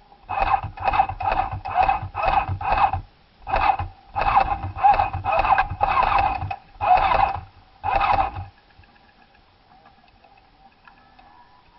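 Airsoft electric gun firing in repeated short full-auto bursts, about ten in all, with one longer burst of about two seconds in the middle; the firing stops near the three-quarter mark.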